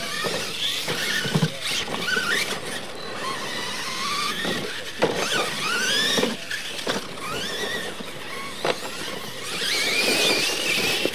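Electric motors and drivetrains of Losi LMT radio-control monster trucks whining, rising and falling in pitch as the trucks accelerate and slow on a dirt track, over a steady hiss of tyres on dirt. Several sharp knocks come through as the trucks land and hit the ramps.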